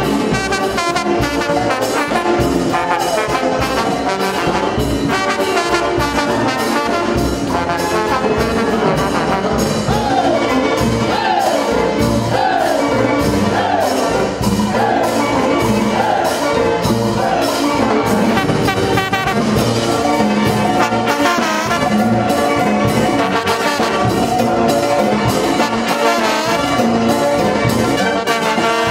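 Brass band of trumpets, trombones and sousaphones playing a tune over a steady beat. Midway through, the horns play a string of quick falling phrases.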